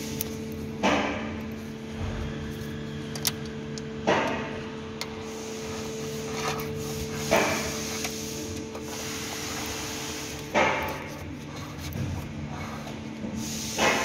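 Cable and carpet rubbing and rustling in short sweeps about every three seconds, with a few light ticks, as a trunk release cable is fed along the car's floor sill. A steady low hum runs underneath.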